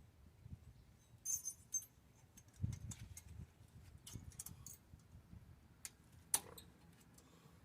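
Scattered light metallic clicks and clinks of small brake parts and tools being handled while fitting new pad hardware at the brake caliper, with a brief rattle a little over a second in and one sharper click a little after six seconds.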